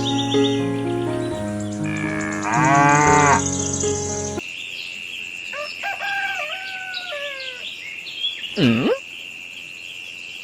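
Music with a cow mooing over it. About four seconds in the music cuts off, leaving a steady high-pitched tone and several more moo-like calls, the last a short dipping call near the end.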